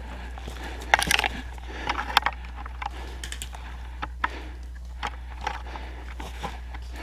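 Footsteps crunching on frozen ground, with irregular clicks and crunches, the densest cluster about a second in and another near two seconds, over a steady low hum.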